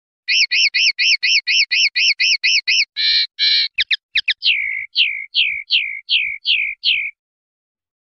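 Common linnet song: a run of about a dozen quick repeated notes at about four a second, a few buzzy notes, then seven notes that each slide downward, ending about 7 s in.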